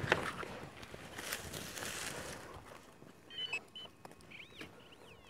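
Hand digging in loose soil and cut stubble: rustling and scraping, then a few short electronic beeps about halfway through from an XP MI-6 pinpointer probing the hole. A few faint chirps follow near the end.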